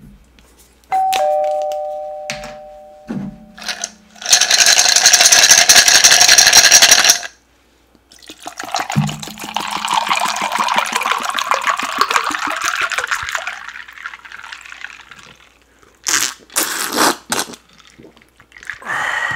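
Liquid poured from a plastic bottle into a glass jar of ice cubes, loudest for about three seconds in the middle and followed by a longer, softer splashing hiss. About a second in, a two-note ding-dong chime rings and fades.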